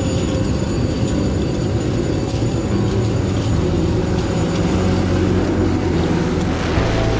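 Steady, loud drone of a C-130 Hercules's four turboprop engines heard from inside the cargo cabin, with thin steady high whines above the rumble.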